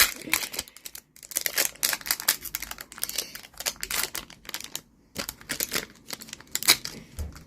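Foil booster-pack wrapper crinkling and tearing as it is ripped open, a rapid run of sharp crackles with a short pause about five seconds in.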